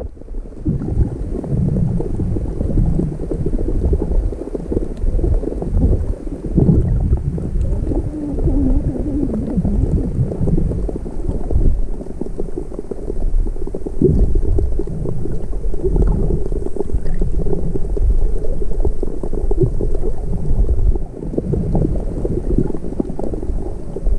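Muffled underwater noise from a camera held under the sea: a steady low rumble of moving water with gurgling.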